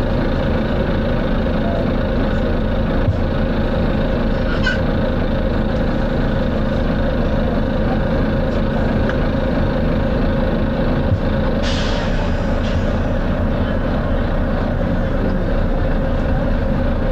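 Volvo B9TL double-decker bus's diesel engine running steadily under load, heard from on board. A short hiss of air from the bus's air system comes about two-thirds of the way through and fades.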